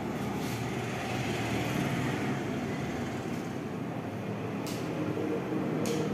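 Dry-erase marker writing on a whiteboard: a few brief, scratchy strokes, over a steady background rumble of room noise.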